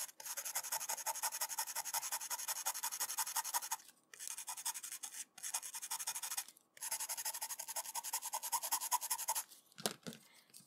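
Fiberglass scratch pen scrubbed quickly back and forth across the edge contacts of a Macintosh SE/30 ROM module, in several runs of rapid rasping strokes with short breaks, to scrape off corrosion down to clean metal. A short thump follows near the end.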